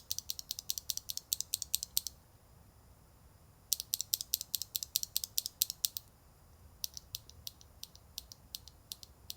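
Rapid, light plastic clicking from WS Heavy Tactile mechanical keyboard switches being handled or worked, in three bursts of about two seconds each, several clicks a second.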